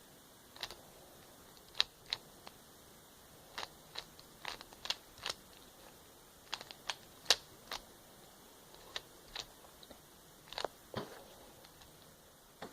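Plastic Rubik's cube being turned by hand, its layers snapping into place in irregular sharp clicks, some in quick runs and some with pauses of a second or more between them.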